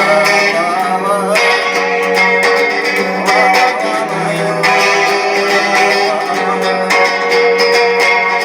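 Guitar music, an instrumental passage of a song cover: strummed chords over a held low note, with no clear singing.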